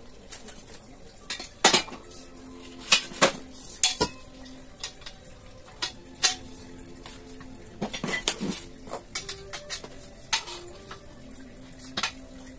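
Painted square steel tubes and frame pieces of an IKEA LERBERG shelf clanking and knocking against each other as they are lifted and handled. There are a dozen or so irregular sharp knocks, the loudest bunched in the first few seconds, and several leave a short metallic ring.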